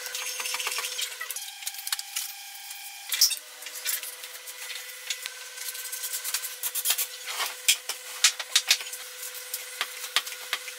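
Wooden parts of a homemade drill press stand being fitted and worked by hand: many short clicks and knocks with some wood rubbing, over a steady hum that changes pitch at the shot changes.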